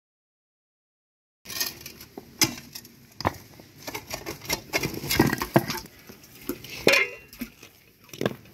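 A short steel spade scraping and knocking against packed soil and broken stones, in irregular clinks and scrapes that start after about a second and a half of silence.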